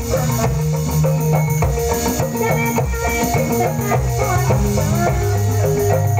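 Calung ensemble music: struck bamboo xylophones playing a busy melody over drums and sustained bass notes, at a steady, unbroken pulse.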